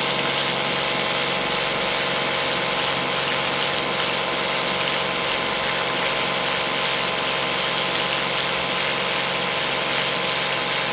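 Ryobi 18V cordless handheld pressure washer running steadily on its turbo setting, cleaning a pool cartridge filter: a constant high-pitched whine from the pump over an even hiss of spraying water, unchanging throughout.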